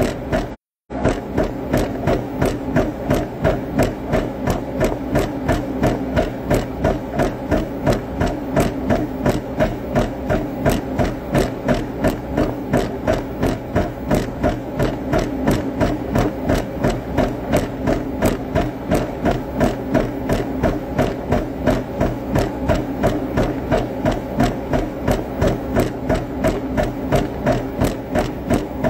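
A fast, even knocking rhythm over a steady hum, running without a break except for a brief cut-out just under a second in.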